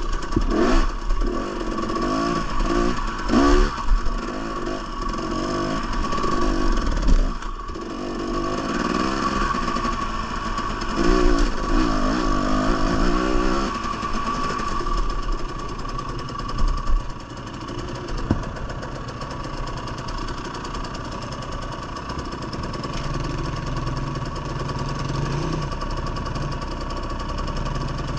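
Two-stroke dirt bike engine, a Husqvarna TE 300, revving in short repeated bursts as it is ridden over rocky singletrack, with some rattling. In the last few seconds it settles to a steadier, lower running note.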